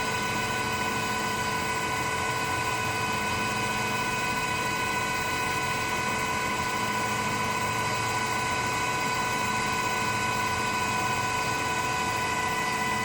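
CNC machine tool running steadily, a constant high whine with a noisy mechanical hum under it.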